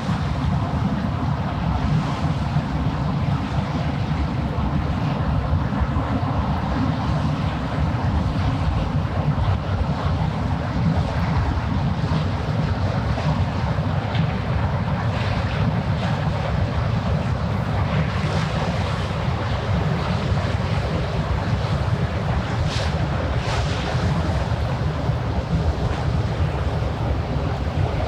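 Wind buffeting the microphone over waves washing against the shore, a steady noise with a couple of brief splashes near the end.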